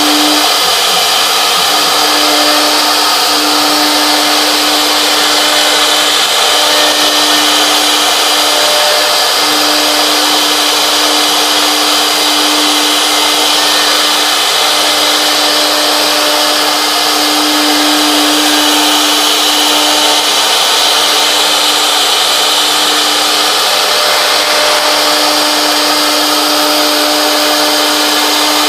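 Three-spindle CNC wood router cutting grooves in a wood panel: a spindle motor's steady whine that dips briefly now and then, over the dense hiss of the bit cutting.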